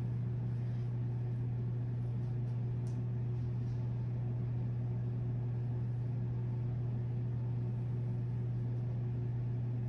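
A steady low hum with a light hiss over it, unchanging throughout.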